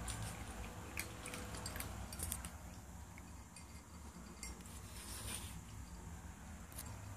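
A cat eating from a stainless steel bowl: faint chewing with scattered light clicks and taps, a few at a time, against a quiet room background.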